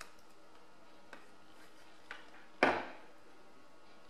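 A 3.5-inch hard drive and its plastic USB-to-SATA adapter being handled: a few light clicks, then one sharp clack about two and a half seconds in that dies away quickly.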